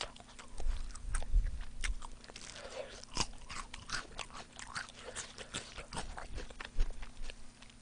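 Close-miked biting and chewing of spicy mala-sauced fried chicken: a run of sharp crunches of the fried coating, busiest in the first couple of seconds and again near the end.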